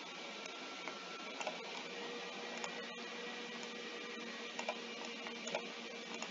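A few sharp computer-mouse clicks at irregular intervals over a steady hiss with a faint hum.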